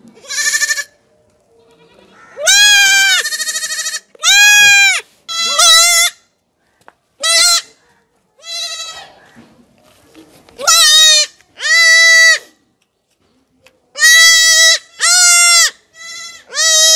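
Young goat kid bleating loudly and repeatedly, about a dozen high calls, some short and some drawn out and wavering, while it is held down and castrated.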